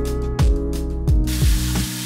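Background music with a steady beat. About a second in, the even hiss of a shower head spraying water joins it.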